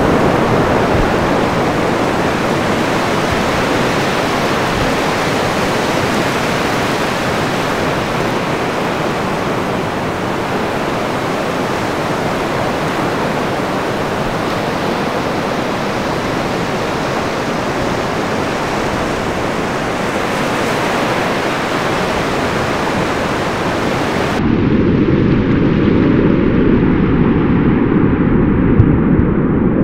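Ocean surf crashing and rushing in a steady wash of water noise. About 24 seconds in it cuts abruptly to a louder, deeper and duller rumble of surf.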